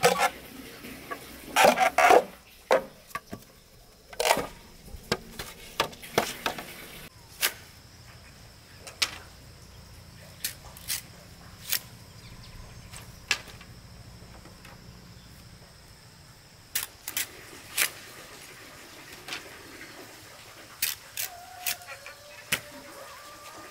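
A series of sharp, irregular knocks and taps, roughly one every second or two, the loudest about two seconds in.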